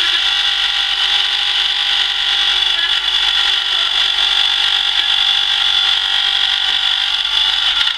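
Mortice key-cutting machine running as its cutter cuts a key: loud, steady and high-pitched, described as quite noisy.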